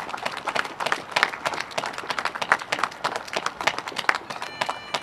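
Crowd applauding, many hands clapping. Near the end a few steady pitched tones come in under the clapping.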